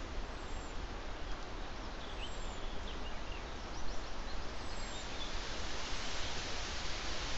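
Steady outdoor background hiss picked up by a trail camera's microphone, growing a little stronger near the end, with a few faint short bird chirps a couple of seconds in.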